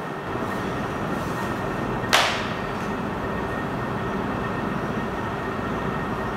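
Steady rushing noise, with one sudden, sharp swish about two seconds in that falls away quickly.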